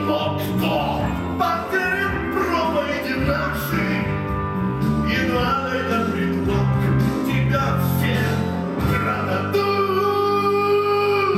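Live rock-opera music from the stage: a band playing with singing, and a long note held near the end.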